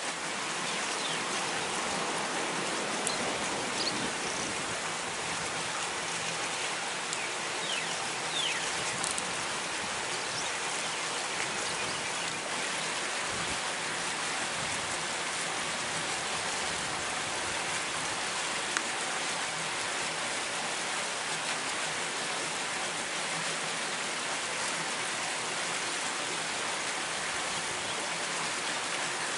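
Steady, even rushing noise of water, like rain or a flowing river, with a few faint chirps a few seconds in.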